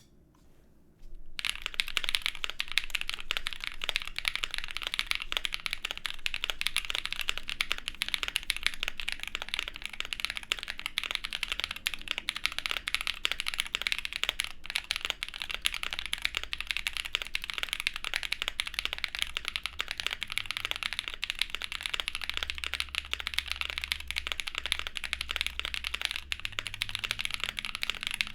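Continuous fast typing on a custom gasket-mounted mechanical keyboard with a POM plate, lubed Kailh black-stemmed Creamsicle linear switches and GMK keycaps. The typing starts about a second in.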